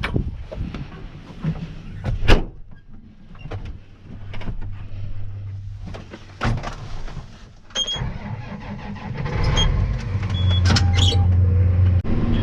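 Vehicle engine running with a steady low hum that grows louder from about eight seconds in, with scattered sharp clicks and knocks.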